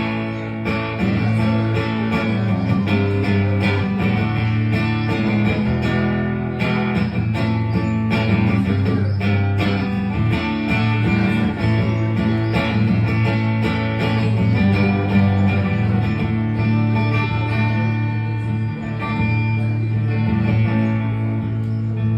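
Guitar-led instrumental break of a song played by a band, with guitars over a steady bass line and no singing.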